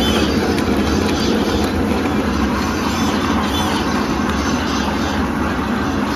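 Automatic drinking-straw bending machine running: a loud, even mechanical noise of its feed rollers and bending mechanism, with faint light ticks.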